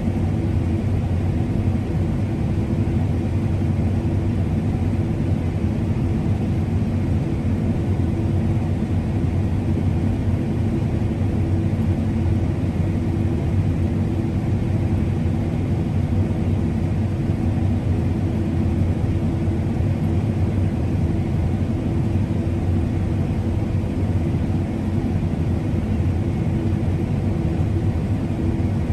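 Steady, constant low engine drone of farm harvest machinery running at an even speed.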